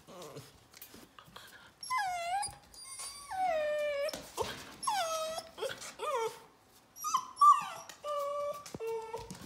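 Eight-week-old yellow Labrador retriever puppies whining: about seven drawn-out whines, each falling in pitch, starting about two seconds in.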